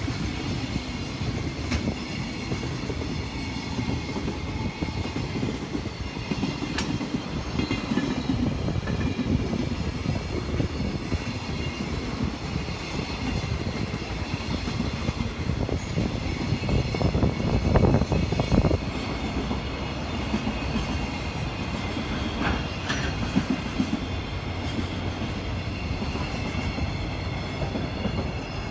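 Container freight train hauled by a JR Freight EF210 electric locomotive running past on the adjacent track: a steady rumble of wagons rolling over the rails, swelling about two-thirds through, heard from a moving car.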